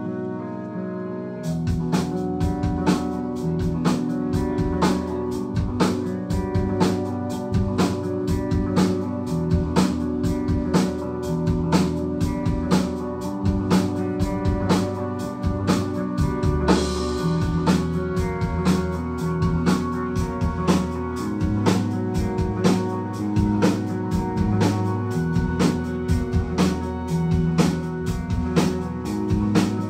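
Live instrumental post-rock band playing electric guitars and keyboards, with the drum kit coming in about a second and a half in and keeping a steady beat.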